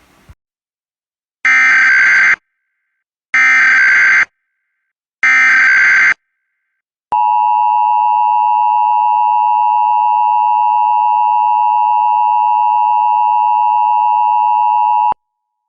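Emergency Alert System SAME header: three harsh, buzzing data bursts about a second each, then the EAS attention signal, a loud steady two-tone alarm held for about eight seconds that cuts off sharply. It is the opening of a nationwide EAS test alert (National Periodic Test).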